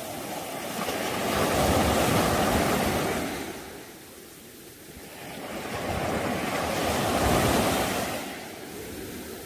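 Small surf waves breaking and washing up a shallow beach, swelling twice: once about a second and a half in, and again about six seconds in.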